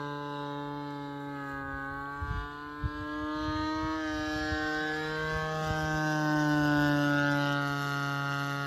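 Zenoah G23cc two-stroke petrol engine of a model airplane running steadily in flight, a high buzzing note whose pitch drifts slightly up and down. A few low thumps on the microphone come about two to three seconds in.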